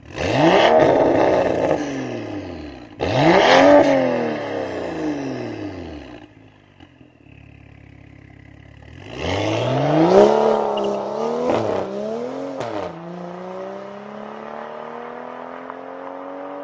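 BMW F30 335i's turbocharged straight-six through an iPE valved aftermarket exhaust, revved sharply twice while standing, each rev rising fast and falling back, then settling to a quieter idle. About nine seconds in it revs hard again and pulls away, with two quick drops in pitch, and its note then climbs steadily as the car drives off.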